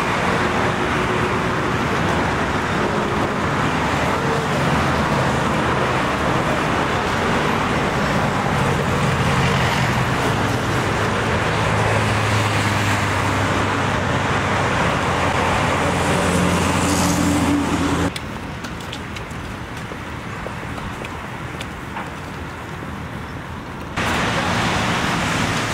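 Road traffic on a multi-lane avenue: car and bus engines humming and tyres rolling past close by. About eighteen seconds in the sound drops suddenly to a quieter traffic hum, and jumps back up about six seconds later.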